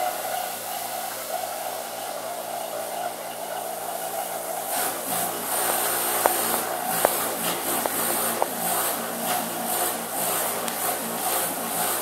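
Hermetic refrigerator compressor running with a steady hum while its own suction draws fresh compressor oil in through a tube. About five seconds in, a fluttering hiss joins the hum, with a few sharp ticks.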